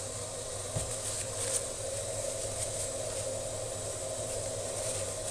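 Steady hum and hiss of an appliance running, with a few faint light clicks about a second in.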